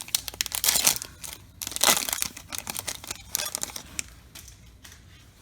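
A Bowman baseball card pack's wrapper being torn open and crinkled by hand: a run of crackling rustles over the first four seconds that then tails off.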